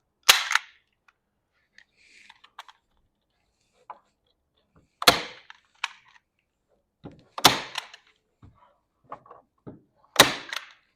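Low-voltage wall-button wire being stapled along the wall: four sharp single strikes, each with a short ring, a few seconds apart, with faint handling noise between.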